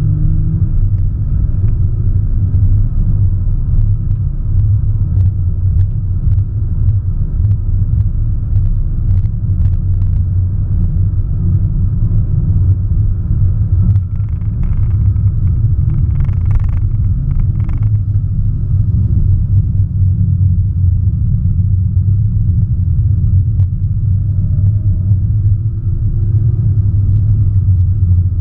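Cabin noise of a 2017 Audi S1 Sportback driven at speed, its turbocharged four-cylinder engine and the road making a steady, heavy low drone.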